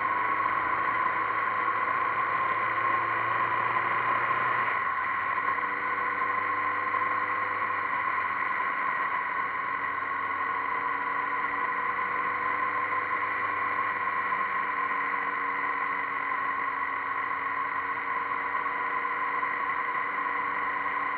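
Motorcycle engine running at road speed, heard through a bike-mounted camera with wind and road noise. The engine note shifts about four to five seconds in, then drifts slowly up and down.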